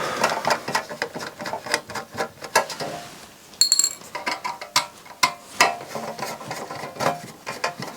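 Irregular small clicks, taps and rattles of a screwdriver and the plastic case of a Philips MCM770 micro hi-fi as the case is worked open, with a brief high metallic ring about halfway through.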